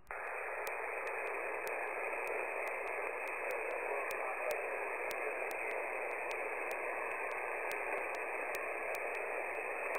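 Steady static hiss from a 20-metre single-sideband radio receiver: band noise between transmissions, in which a very weak station is barely audible.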